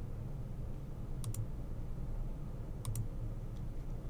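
Computer mouse clicking: two quick double clicks, about a second and a half apart, over a low steady hum.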